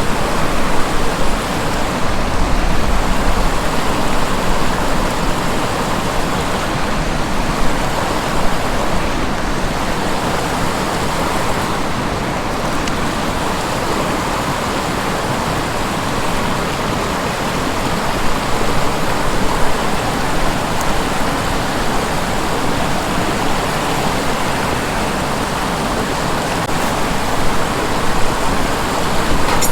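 River water rushing steadily past, an even noise with no distinct clicks.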